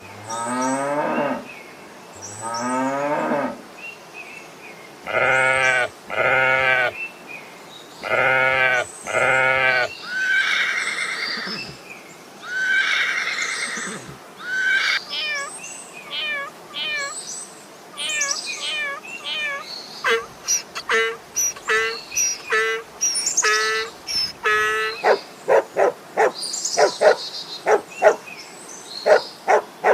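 Farm animals calling one after another, several different kinds in turn. It opens with two rising calls, goes on to pairs of long calls and some higher calls, and from about two-thirds of the way in there is a quicker run of short repeated calls.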